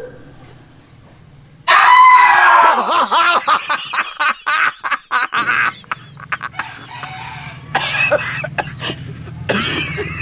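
A sudden loud, shrill cry breaks a short hush about two seconds in, then choppy bursts of laughter follow.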